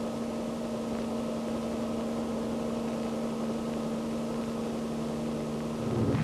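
Small helicopter running on the ground: a steady engine drone with a constant hum. A lower tone joins and it grows a little louder just before the end.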